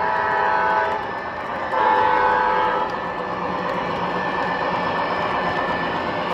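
Model train's electronic diesel horn sounding from its onboard speaker: one blast ends about a second in, and a second blast follows about two to three seconds in. Steady running noise of the O-gauge train continues beneath and after the horn.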